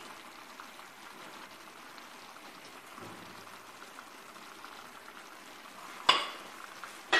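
Faint steady sizzling hiss of a clay tagine cooking over the heat, with one sudden sharp knock about six seconds in.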